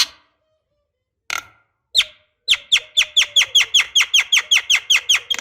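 Javan myna calling: a few separate harsh calls, then from about two and a half seconds a fast, even run of sharp down-slurred notes, about five or six a second.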